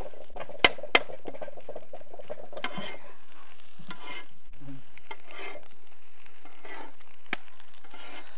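Kothu parotta frying in a hot pan: steady sizzling, with a few sharp metal strikes of a utensil on the pan, two close together about a second in and another near the end.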